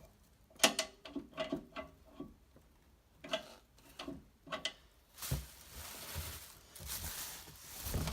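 Cardboard box and polystyrene packing being handled and shifted: a string of short knocks and creaks, then a longer scraping rustle over the last few seconds.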